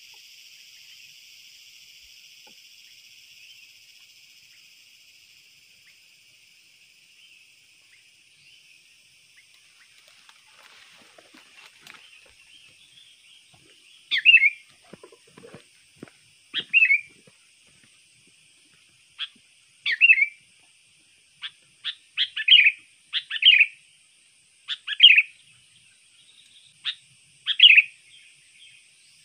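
Sooty-headed bulbul (kutilang) giving loud, short, repeated chirping calls, one every second or two, from about halfway in. The calls are the kind played as a lure for wild bulbuls. Before them a steady high insect buzz fades away.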